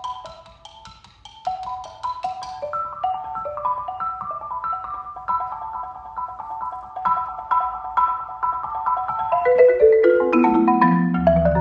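Four-mallet marimba solo: a fast stream of repeated struck notes in the middle register. About ten seconds in, a run steps down into the low bass bars and grows louder.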